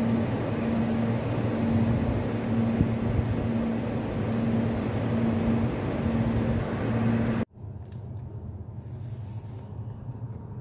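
Daikin VRV IV outdoor unit running in its forced test operation: steady fan and compressor noise with a low hum that swells and fades about once a second. About seven and a half seconds in it cuts off abruptly, leaving only a much quieter room tone.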